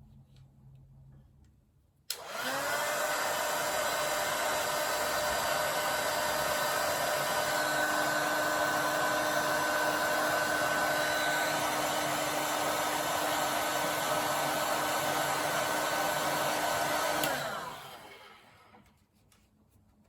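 Heat gun switched on about two seconds in, its motor spinning up and blowing steadily for about fifteen seconds, then switched off and winding down, shrinking heat-shrink tubing over the ends of unused wires.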